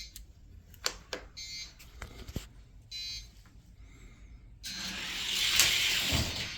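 Diecast cars racing down a Redline Derby gravity drag track. A few short electronic buzzes and clicks come first, then from a little past halfway there is about two seconds of loud, even rushing rumble as the cars roll down the track.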